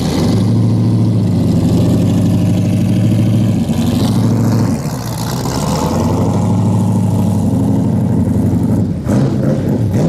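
V8 engine and exhaust of a classic Dodge Charger with a supercharger through the bonnet, running as the car drives off slowly. The deep, steady engine note dips briefly a little before the middle, then carries on.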